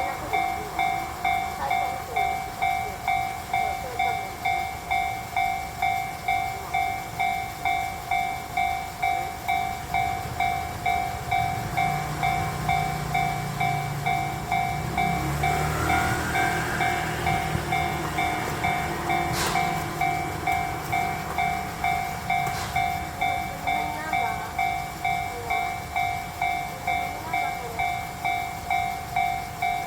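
Japanese level-crossing electronic warning bell ringing in an even, unbroken rhythm of about three dings every two seconds, signalling that the barriers are down. From about twelve to nineteen seconds in, a low rumble swells under it, with a short squeal and then two sharp clicks.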